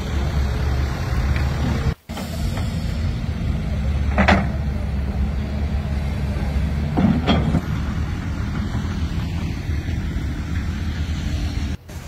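Construction-site machinery running with a steady low engine rumble, with two short louder sounds about four and seven seconds in. The sound cuts out for a moment about two seconds in and again near the end.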